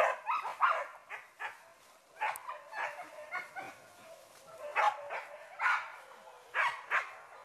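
Hunting dogs barking and yelping in short irregular bursts, with a brief lull in the middle.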